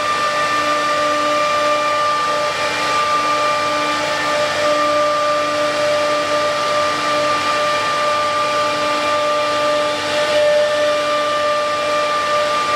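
Several CNC wood router spindles running at speed, a steady high whine over a broad cutting hiss, with a lower hum that wavers in and out.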